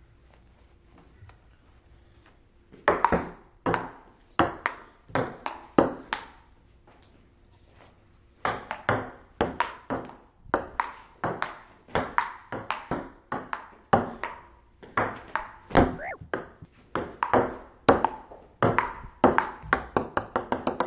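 Table-tennis rally: a celluloid-type ping-pong ball clicks sharply off paddles and the table, a few hits a second. The hits start about three seconds in, stop briefly, then run on quickly.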